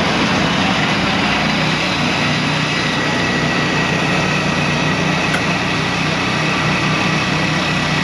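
Norwood Frontier OS-27 portable bandsaw mill's small gas engine running steadily, with a faint steady high whine over it.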